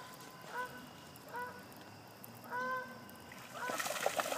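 A goose honking, four short calls, the third a little longer, with a short burst of clicking, splashy noise near the end.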